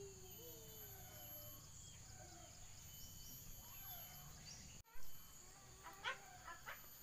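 Outdoor ambience: a steady high insect drone with a few faint gliding calls. About five seconds in the sound cuts, then comes a short loud sound and a few brief animal calls.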